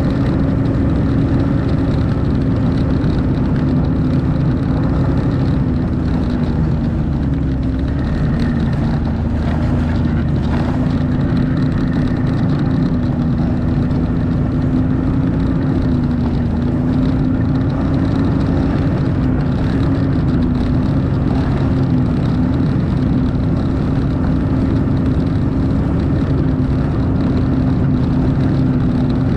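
Snowmobile engine running at a steady cruising speed, a constant drone whose pitch wavers only slightly up and down.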